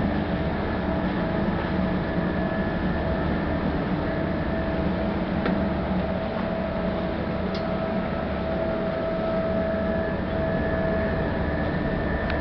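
Car ferry's engines and machinery running: a steady low rumble with a constant hum on top.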